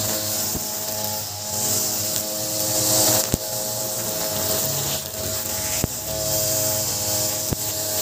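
Ogawa 26cc brush cutter engine running at steady high speed, its 2.2 mm round nylon trimmer line whipping through weeds between concrete paving slabs, with four sharp ticks where the spinning line strikes the concrete.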